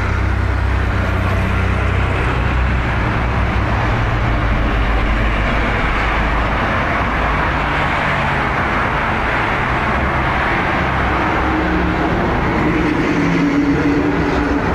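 Road traffic on a highway: cars and a truck driving past with a steady noise of tyres and engines, and a low engine rumble in the first few seconds.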